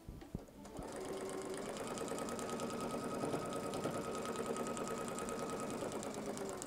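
Electric sewing machine stitching a seam at steady speed through fabric on a paper foundation, the needle's rapid even ticking over a steady motor hum; it starts about a second in and stops near the end.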